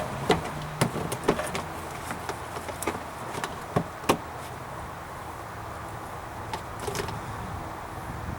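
Scattered clicks and metallic knocks of hand tools and parts being handled during reassembly of a truck's front axle, over a steady low hum.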